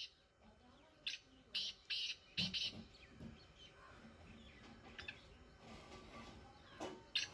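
Caged black francolin calling: a run of about five short, harsh notes starting about a second in, then a quiet spell before the next call begins near the end.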